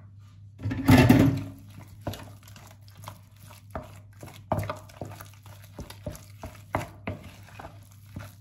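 Wooden spoon stirring and mashing a thick fish paste with coconut milk and tapioca starch in a dish, giving irregular soft scrapes and knocks against the bowl. There is one brief louder noise about a second in.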